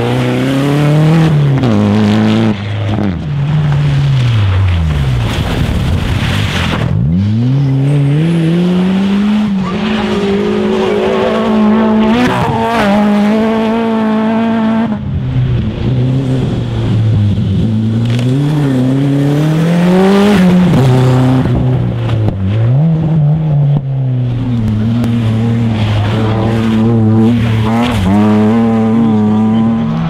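Rally car engines driven hard, one car after another. The engine note climbs sharply under acceleration and drops back at each gear change or lift, and several passes end in a falling sweep.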